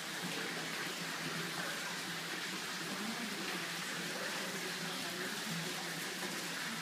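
Steady, even hiss of room background noise, with no distinct event.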